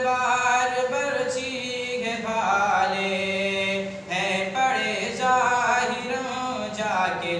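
A man's solo voice chanting a naat, an Urdu devotional poem in praise of the Prophet, unaccompanied, in long held notes that waver in pitch, with a short pause for breath about four seconds in.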